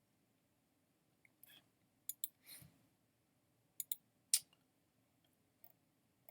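A handful of short, scattered clicks and soft rustles against low room hiss, the sharpest click about four seconds in.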